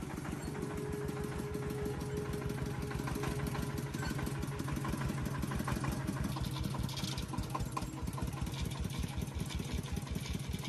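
Diesel engine running steadily, with a fast, even chugging beat.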